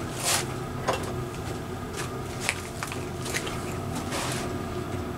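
Hands rummaging on a workbench: a few short rustles and light clicks of small items being picked up and handled, over a steady low hum.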